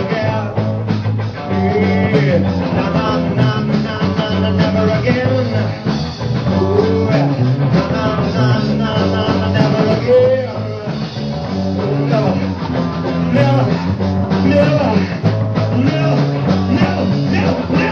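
Live rock band playing a song: electric guitars over a stepping bass guitar line and steady drums, with notes bending in pitch.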